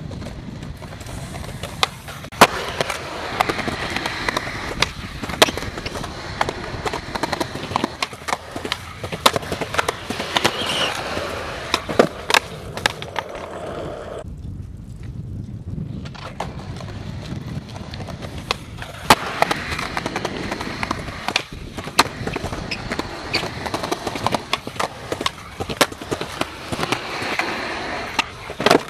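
Skateboard wheels rolling over rough pavement, with sharp clacks of the board popping and landing throughout. The rolling drops away briefly about halfway through, then picks up again.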